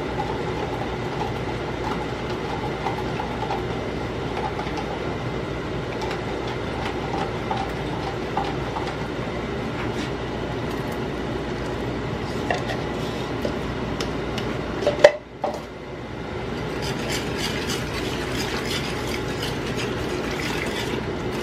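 A spoon stirring beef gravy in a pot as a cornstarch slurry is worked in to thicken it, with small scrapes and clinks against the pan over a steady hum. There is one loud knock about fifteen seconds in.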